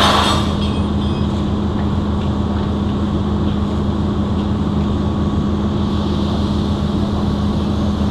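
Steady, loud machinery hum with a strong low droning tone, running unchanged throughout. A short burst of hiss at the very start.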